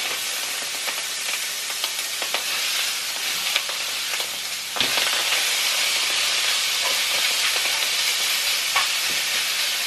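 Skin-on chicken pieces sizzling in a hot frying pan with no oil, a steady frying hiss. The sizzle steps up louder about five seconds in as more pieces go into the pan, with a few light clicks of tongs against the pan.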